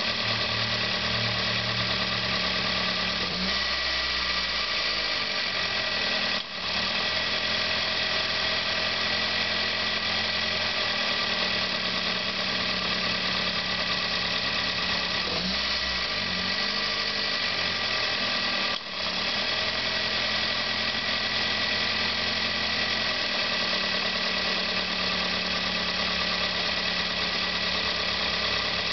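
Car engine idling with its belt-driven pulleys turning and a steady high whine. The low engine note shifts about every four seconds as the air-con compressor cuts in and out, with two brief dips in the sound.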